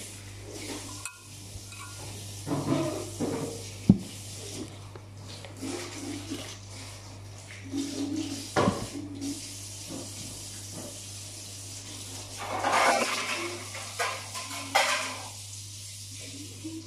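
Kitchen utensils and bowls clinking, scraping and knocking during food preparation, with a few sharp knocks and some short rushing noises, over a steady low hum.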